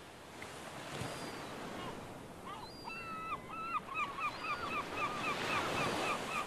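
Sea water washing and foaming over rocks, with a steady surf hiss. From about two and a half seconds in, a gull gives a run of calls: a couple of longer notes, then quick repeated short ones about three a second.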